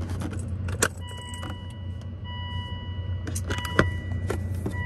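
Keys jangling on the ignition key ring, with clicks and light knocks from a hand working the controls, over a steady low hum. A faint steady high tone starts about a second in.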